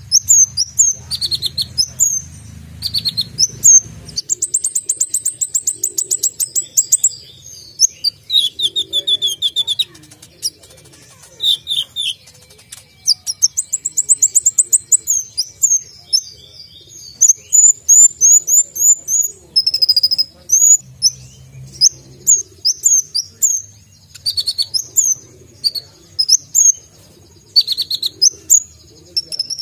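Male Van Hasselt's sunbird (kolibri ninja) singing loudly in a sharp, high-pitched voice: fast trilled runs of notes and quick rising and falling chirps, in bursts with short pauses, full of 'isian' copied phrases.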